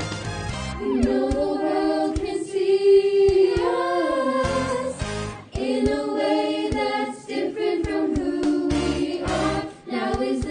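A choir singing a pop song over backing music, holding long sung notes in phrases with short breaks between them.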